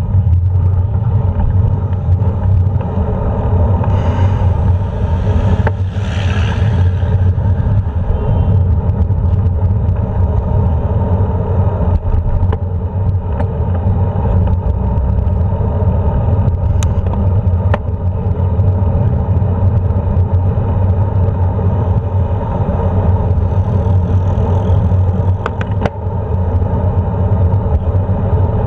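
Steady low rumble of wind and road noise on a bicycle-mounted GoPro while riding along a street with traffic. A vehicle passes more loudly about four to seven seconds in.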